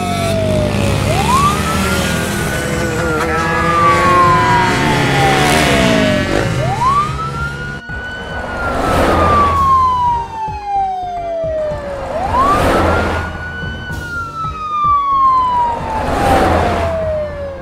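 Police siren wailing through three cycles, each a quick rise in pitch followed by a long, slow fall.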